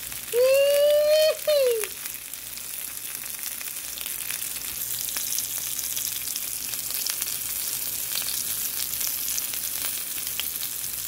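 Chicken pieces and sausages frying in a pan: a steady sizzling hiss with fine crackles. Near the start a loud held tone sounds over it for about a second and then drops in pitch briefly.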